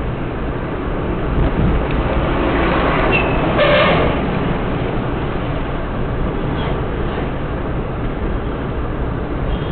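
Steady rumble of a moving vehicle's engine and road noise, picked up from the vehicle the camera rides on. A short horn sounds about three and a half seconds in.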